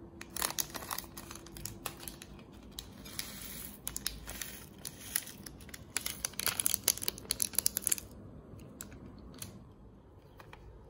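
Scissors snipping open a foil sachet, then the packet crinkling as it is shaken and squeezed to empty out dried vegetable flakes, with a dense run of crackling near the end.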